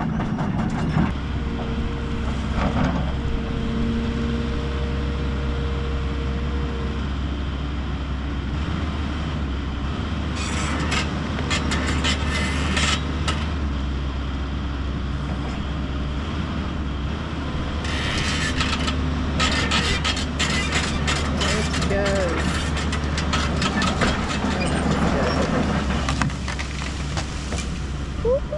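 Excavator's diesel engine running steadily under load, with a hydraulic whine for the first several seconds, as it pushes over a tree. Wood and branches crackle and snap in two stretches, about ten seconds in and again near the twenty-second mark.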